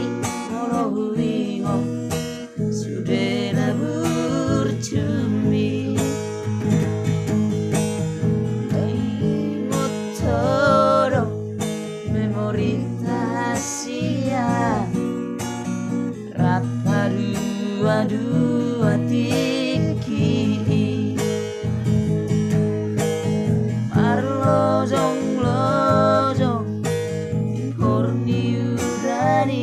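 Acoustic guitar strummed as accompaniment while two male voices sing together, in phrases over the steady chords.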